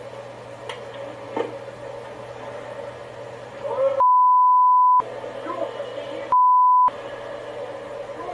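Two censor bleeps, each one steady pure tone that replaces all other sound. The first lasts about a second and starts about four seconds in; the second is shorter and comes about a second and a half later. Between them runs a low steady electrical hum.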